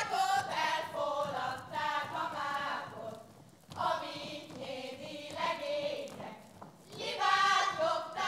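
A group of women singing a Hungarian folk song together, line by line, with a brief break between phrases a little after three seconds in.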